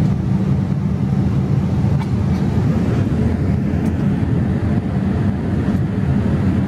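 Steady, deep cabin noise of a Boeing 787 Dreamliner airliner in cruise: an even rush of engine and airflow sound, heard from a seat inside the cabin.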